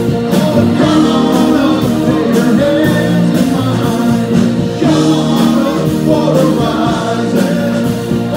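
Live rock band playing at full volume with singing over a steady drum beat, guitars and keyboards, heard from among the audience.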